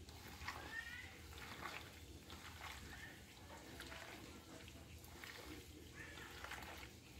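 Faint wet squishing and soft clicking of a hand mixing spice-marinated small fish in a plastic bowl.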